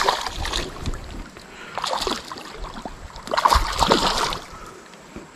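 Splashing water and irregular knocks at the side of a kayak as a hooked spotted bass is landed, in several bursts with short lulls between them.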